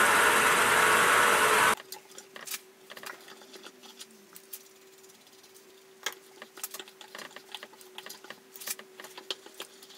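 Sieg milling machine's spindle running as a small drill bit drills a hole in a steel part, cutting off abruptly about two seconds in. Then faint scattered clicks and scrapes of a hand tap being turned with a tap wrench to thread the hole.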